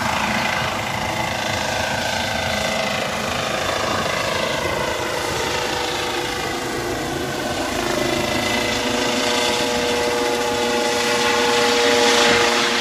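Medevac helicopter lifting off and climbing away: a steady turbine whine over rotor noise. Several whining tones slide down in pitch, and the sound swells in loudness near the end.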